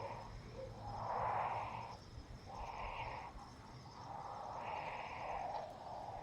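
Nestling birds in the nest giving a series of raspy, hissing begging calls, about one a second.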